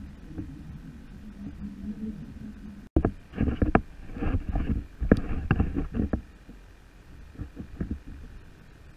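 Hollow knocks and thumps on a plastic sit-on-top kayak, a quick run of them for about three seconds starting about three seconds in, with a few weaker ones near the end. Before them, a low steady hum.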